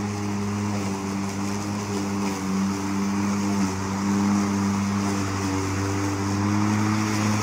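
Greenworks 25022 20-inch 12-amp corded electric lawn mower running steadily while cutting tall grass: a steady motor-and-blade hum over a rushing noise, its pitch sagging slightly now and then.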